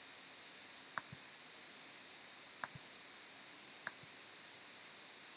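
Three computer mouse clicks, each a short sharp click followed closely by a fainter tick, over a faint steady hiss.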